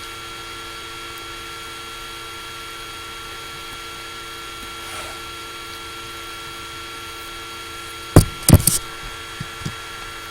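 Laptop cooling fan running with a steady hum and whine, picked up loudly by the laptop's built-in microphone. About eight seconds in come three or four loud, sharp knocks close together, with a few fainter taps after them.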